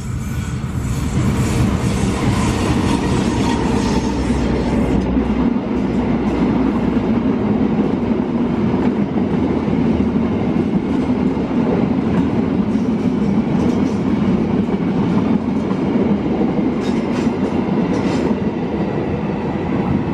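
Diesel locomotive-hauled passenger train passing close by at speed, a loud steady rumble of the locomotive's engine and then the coaches' wheels running on the rails, with sharp clicks of the wheels over rail joints near the end.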